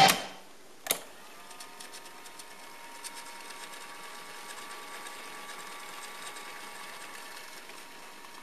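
Sanyo RD 5372 cassette deck: playback music cuts off as STOP is pressed, a transport key clicks about a second in, and the tape then rewinds at high speed with a steady motor whir and faint ticks.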